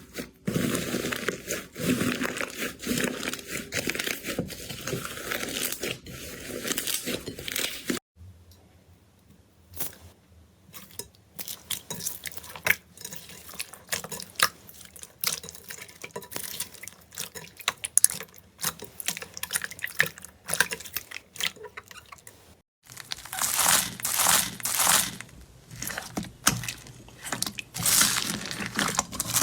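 Slime being squeezed, stretched and poked, giving crackling, crunchy and popping sounds. The texture changes twice: dense crackling at first, sparse pops and clicks from about eight seconds in, then louder crackling bursts near the end.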